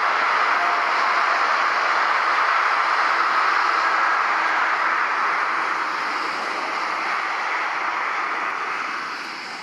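Jet engines of a taxiing Boeing 767 airliner, a steady rushing noise that fades away about nine seconds in.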